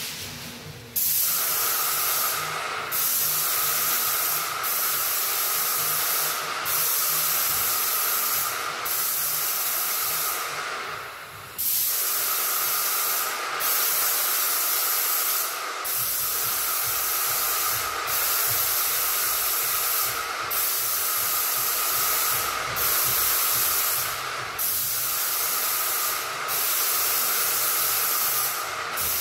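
Airless paint sprayer spraying primer through a pole-mounted gun: a loud, steady hiss that starts about a second in and stops briefly every two seconds or so as the trigger is let go between passes, with one longer pause about eleven seconds in.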